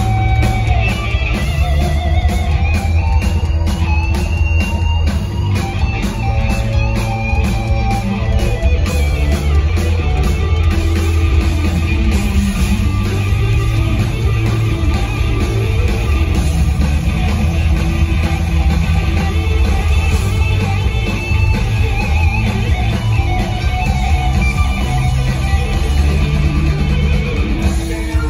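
Live rock trio of electric guitar, bass guitar and drum kit playing loudly, with the electric guitar leading an instrumental passage.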